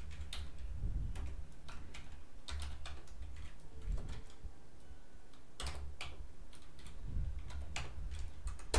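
Computer keyboard typing: key clicks in uneven bursts with short pauses, and one sharper key strike near the end.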